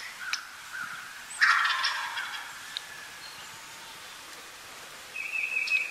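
Wild turkey tom gobbling once, a loud rattling call about a second and a half in. Near the end there is a brief high steady note.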